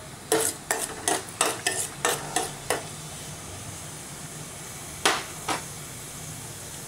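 Mustard seeds spluttering in hot oil in a stainless steel pot, the tempering stage of the curry: a quick run of sharp pops in the first few seconds and two more about five seconds in, over a faint steady sizzle.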